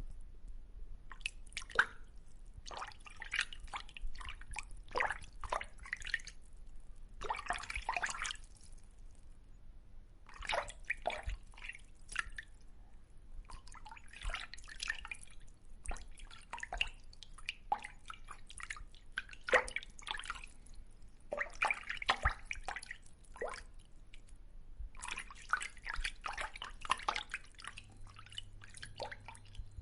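Fish splashing at the surface of a river: irregular clusters of small splashes and drips, each flurry lasting a second or two with short pauses between.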